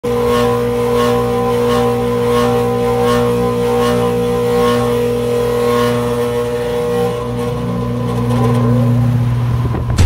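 Half-horsepower 575-volt single-phase condenser fan motor struggling to start. It hums steadily, and as the blades turn slowly a swish repeats about every half second. Near the end a rising whine comes in as it picks up speed. The hard start comes from a failed run capacitor, measured at 1.7 microfarads against its 7.5 microfarad rating.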